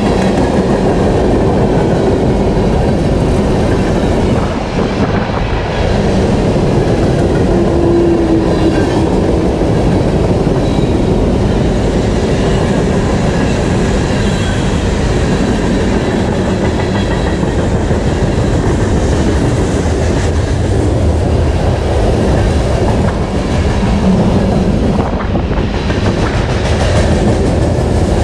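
Freight train rolling past, its cars' wheels running loud and steady on the rails.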